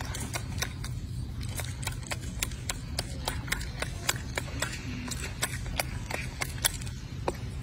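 A golden snub-nosed monkey chewing a red fruit close up, with sharp irregular crunching clicks a few times a second over a steady low rumble.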